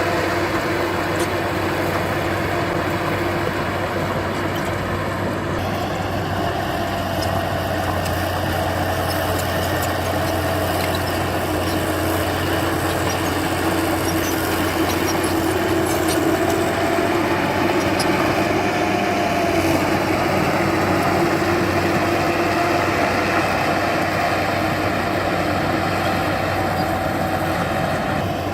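Heavy earthmoving machine's engine running steadily under a low drone, with a higher tone that wavers slightly over time.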